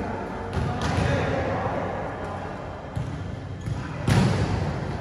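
A volleyball being bounced and hit in a large gym hall: several sharp thuds, the loudest about four seconds in, over players' voices.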